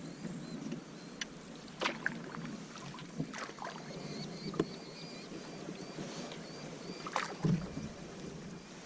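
Kevlar canoe being worked through a shallow creek: water swishing and splashing around the hull, with several sharp knocks, one about two seconds in, a few around three to four and a half seconds, and one loudest near seven seconds.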